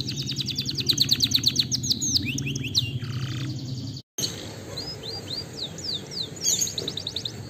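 Canary singing: fast, even trills of high notes, about ten a second, alternating with runs of quick downward-sliding whistles. The song is broken by a brief dead silence just past halfway.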